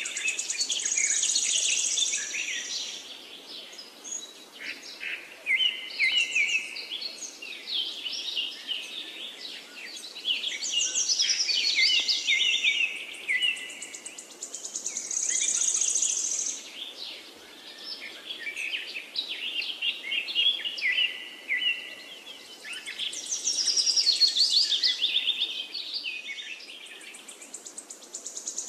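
Several birds chirping and singing, with quick trills and twittering calls that swell and fade every few seconds.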